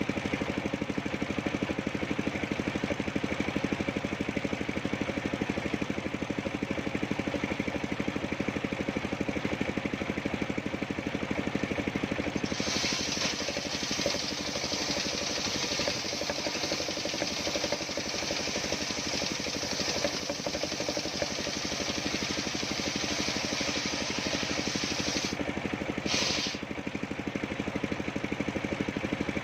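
Engine of a homemade circular saw rig running steadily. About twelve seconds in, the blade starts cutting old coconut-palm wood and adds a high-pitched hiss that lasts about thirteen seconds. A second short cut follows a moment later.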